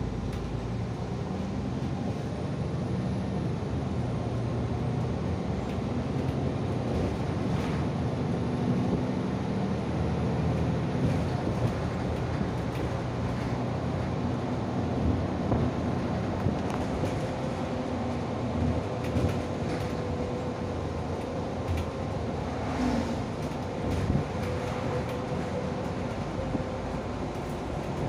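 Cabin noise inside a SOR NS 12 city bus on the move: a steady drone of engine and road, with a few short knocks and rattles. A faint steady whine joins a little past halfway.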